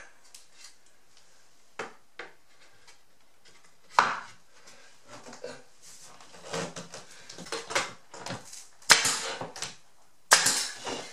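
A cedar shiplap board knocked, scraped and pressed into place against the wall, with one sharp wooden knock about four seconds in. Near the end a pneumatic nail gun fires twice, about a second and a half apart, fastening the board.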